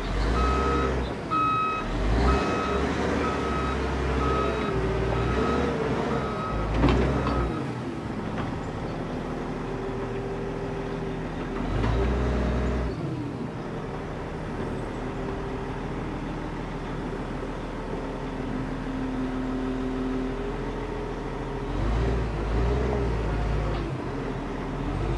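Caterpillar wheel loader's diesel engine running and revving up and down as it maneuvers. Its reversing alarm beeps steadily for about the first seven seconds, and a sharp knock comes about seven seconds in.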